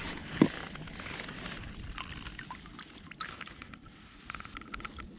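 Faint water lapping and trickling around a small boat's hull. There is one short knock about half a second in, and a few faint light clicks later on.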